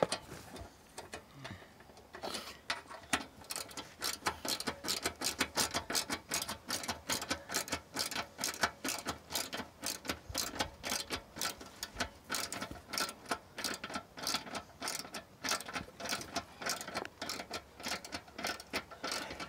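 Hand socket ratchet on an extension bar turning a fastener, its pawl clicking in quick runs from about two seconds in.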